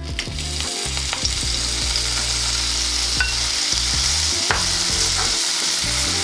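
Cubes of tofu sizzling as they fry in hot vegetable oil in a non-stick pan, the sizzle building as they go in. A wooden spoon knocks lightly against the pan a few times as it pushes them around.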